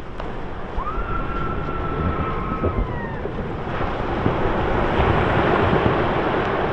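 Steady rushing wind and water noise, with wind buffeting the microphone. About a second in, a single held tone sounds for about two seconds and slides down as it fades.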